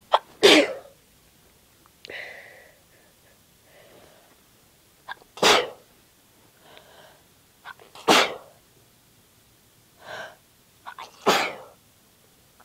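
A woman sneezing four times without covering her mouth, a few seconds apart, each sneeze with a quick sharp catch just before it. Softer breaths come between the sneezes.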